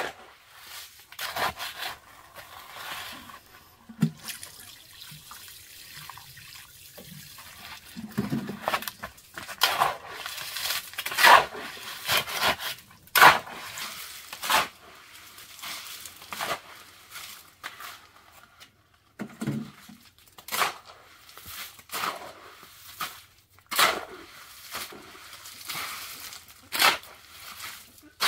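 Wet concrete mix being worked by hand with a shovel: a run of irregular scrapes and wet slaps, some strokes about a second apart.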